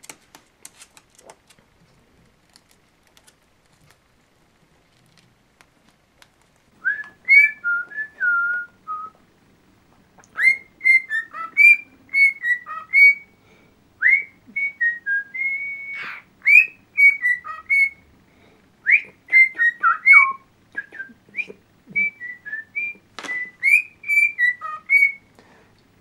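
Cockatiel whistling its song: runs of short, chirpy, up-and-down whistled notes in bursts, starting about seven seconds in. Before that, only faint light clicks.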